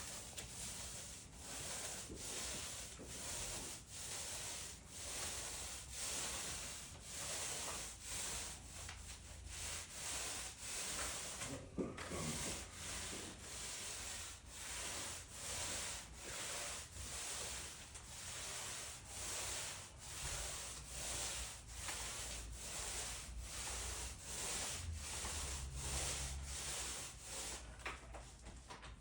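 Steady, even back-and-forth rubbing strokes of a hand tool across a concrete slab, about one and a half strokes a second, with no motor running.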